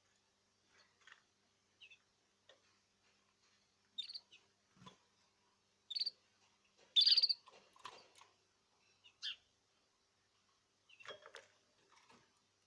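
Caged birds giving a few short, separate chirps, the loudest about seven seconds in, with faint clicks and rustling between them.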